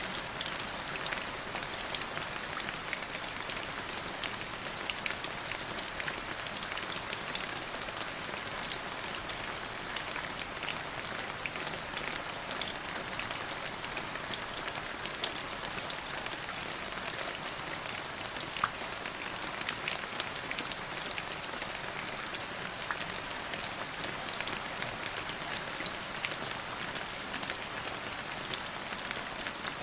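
Steady rain falling, an even hiss dotted with many sharp ticks of individual drops striking a surface.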